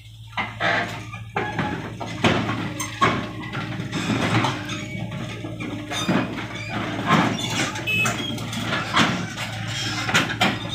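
Hitachi Zaxis 48U mini excavator's diesel engine running steadily under load, with repeated sharp metallic clanks and knocks, roughly one a second, as its steel tracks and bucket bear on the steel deck of a flatbed truck while it climbs aboard.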